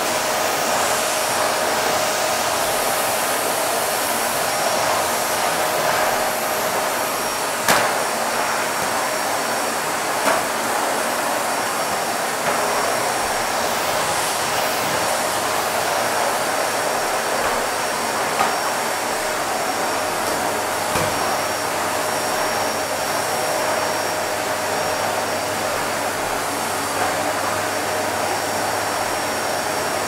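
Vacuum cleaner running steadily: an even rush of air with a steady motor hum. A sharp click comes about eight seconds in and a softer one near ten seconds.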